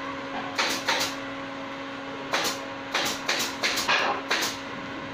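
Hand-cranked wooden rotisserie rig turning a bamboo spit: irregular short creaks and knocks, most frequent in the second half, over a steady low hum.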